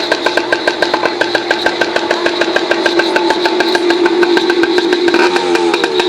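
Yamaha PW80's small two-stroke single-cylinder engine running at a steady idle with an even pulsing beat, warming up after a cold start; its pitch shifts slightly near the end.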